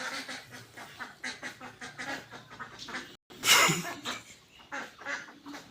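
Short animal calls repeating again and again. A brief gap a little past three seconds is followed by a short, loud, noisy burst.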